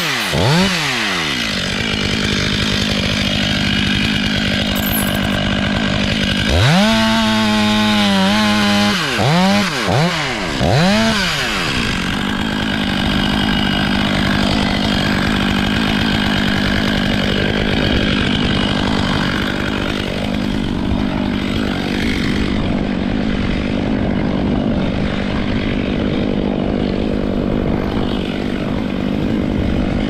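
Petrol Stihl two-stroke chainsaw: it drops to idle, revs up hard with three quick throttle blips, then runs steadily under load cutting into a poplar stem.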